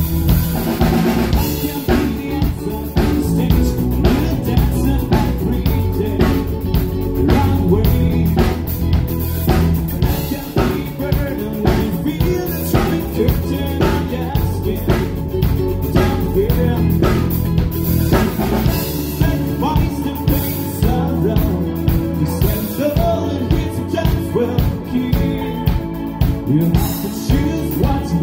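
A live rock-pop band playing: drum kit, bass guitar and electric guitar, with a man singing into a microphone over a steady drum beat.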